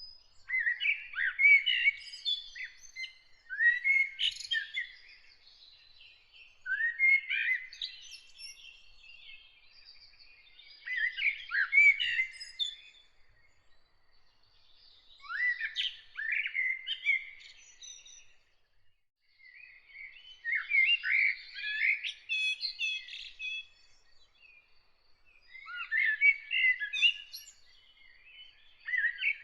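A songbird singing: short phrases of quick chirps and trills, each about two seconds long, repeated every few seconds with short pauses between.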